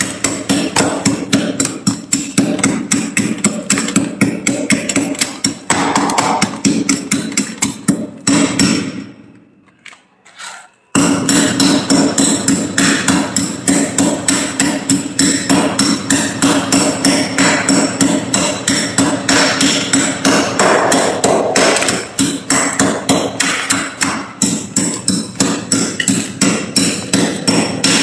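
A metal tool scraping and chipping thick frost off the walls of a freezer compartment in rapid repeated strokes, several a second. The strokes pause for about two seconds about a third of the way in, then carry on.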